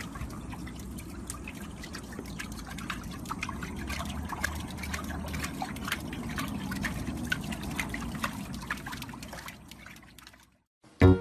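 Water splashing and sloshing as a small Chihuahua paddles its legs in a shallow plastic paddling pool, with many small quick splashes. It fades out near the end.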